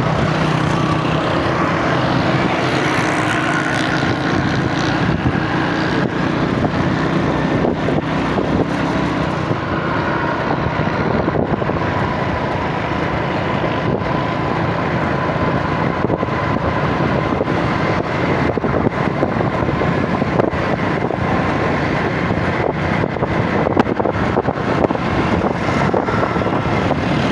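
Steady noise of a moving road vehicle running without a break.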